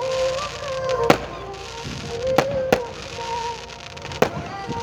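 Fireworks going off: four sharp bangs in a few seconds, two of them close together, over a crackling hiss.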